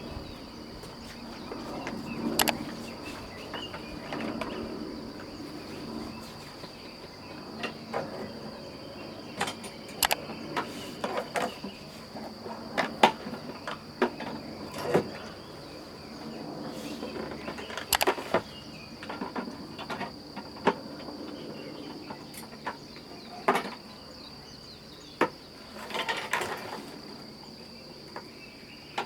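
Crickets trilling steadily in one continuous high-pitched tone, with scattered clicks and knocks now and then.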